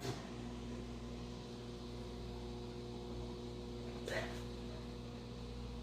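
Steady low electrical hum made of several constant tones, beginning with a sharp click. A brief, faint voice-like sound with rising pitch comes about four seconds in.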